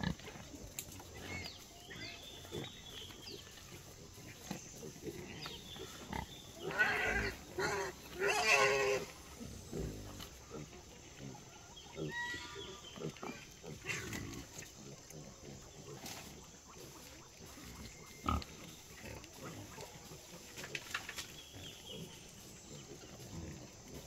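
Pigs grunting and squealing in bursts, loudest about a third of the way in, with a few short knocks.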